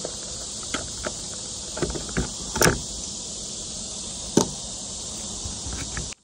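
Steady high-pitched insect drone, with a handful of sharp clicks and taps over it, the loudest about two and a half and four and a half seconds in. The drone cuts off abruptly near the end.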